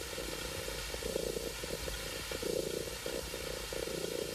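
Domestic cat purring close up, a low throbbing purr that swells and fades in repeated bursts.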